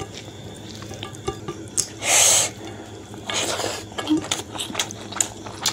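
Close-miked eating sounds: fingers squishing and mixing rice with pork curry, then wet chewing with lip smacks and small clicks. Two short breathy hisses come about two and three and a half seconds in, the first the loudest.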